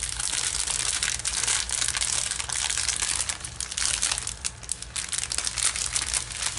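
Clear plastic packaging of diamond-painting drills crinkling continuously as it is handled in the hands, with many small crackles.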